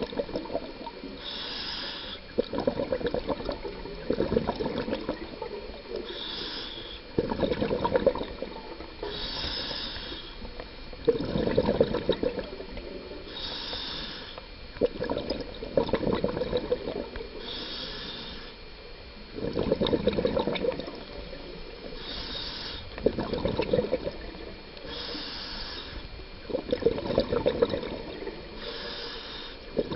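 A scuba diver breathing through a regulator underwater, about every four seconds. Each breath is a short hiss on the inhale, followed by a louder gurgling rush of exhaled bubbles.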